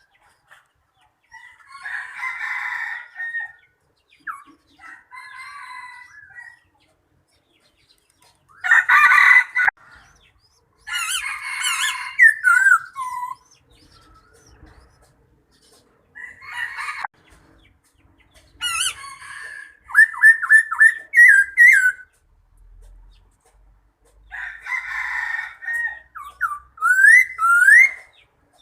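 Birds calling in separate bouts: several hoarse, crowing-like calls about a second long, with whistled rising notes and a quick run of short chirps about two-thirds of the way through.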